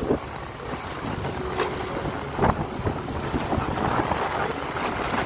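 Motor scooter being ridden, its small engine running steadily under wind noise on the microphone, with a few short knocks.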